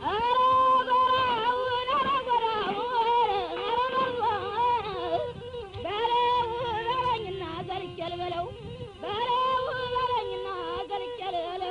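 A woman singing a slow, ornamented melody in long held phrases, three of them with short breaks between.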